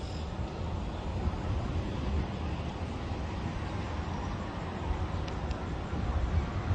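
Steady outdoor city ambience heard from a high balcony: a low rumble of distant traffic, with wind buffeting the microphone.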